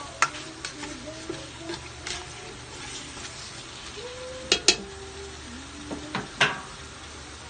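Chicken pieces frying in oil in a metal pot while a utensil stirs them, with sharp clacks of the utensil against the pot, the loudest a quick pair about four and a half seconds in and another near the end.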